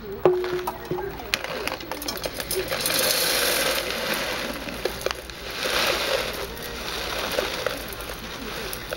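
Tightly rolled Alishan oolong tea leaves sliding and rattling in a foil bag inside a metal tea tin, with the bag crinkling. The leaves rush in swells as the tin is tilted, and there is a short metallic ring just after the start.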